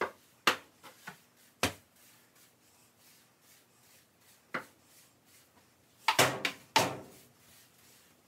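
Sharp household knocks and clatters as things are handled and put away in a kitchen: a few in the first two seconds, one more after a pause, then a quick cluster of louder clatters about six seconds in.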